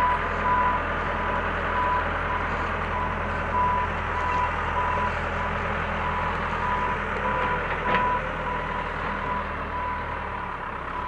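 Backhoe reversing alarm beeping about once a second over the steady hum of the machine's engine, with the beeps fading out near the end.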